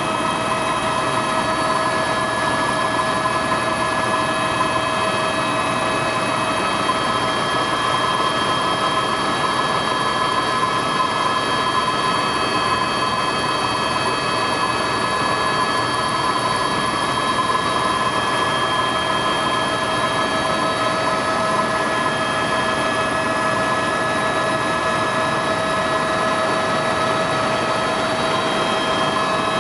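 Helicopter in flight heard from inside its cabin: a steady loud rushing noise with several constant high whining tones over it.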